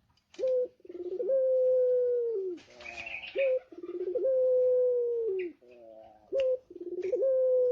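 Male puter pelung dove cooing three times, about three seconds apart. Each coo is a short rising note, then a quick stuttering run, then a long, clear held note that drops at the end: the long 'ngelik' coo this breed is kept for.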